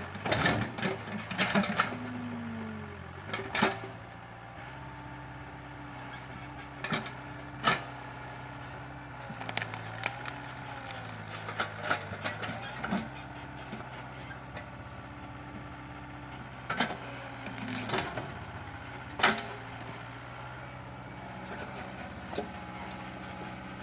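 Sumitomo mini excavator's diesel engine running, its pitch shifting up and down as the hydraulics take and release load. Scattered sharp cracks and knocks of wood and roots breaking as the bucket digs out a eucalyptus stump.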